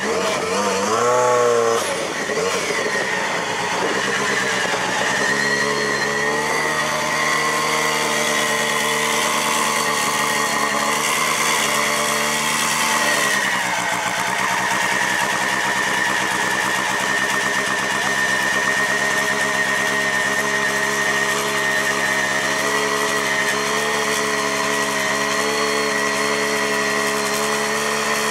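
Lancia Delta S4 Group B rally car's twin-charged four-cylinder engine gives a short rise and fall in revs about a second in, then idles steadily.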